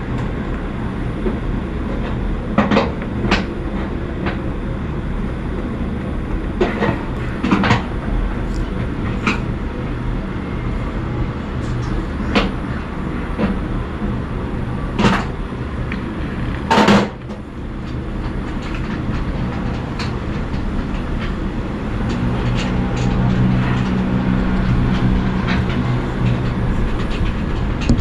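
A steady low mechanical hum, with scattered sharp clicks and knocks on top. A deeper hum swells for a few seconds near the end.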